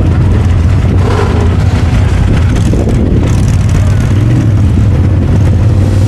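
A vehicle's engine running steadily with a loud, constant low drone.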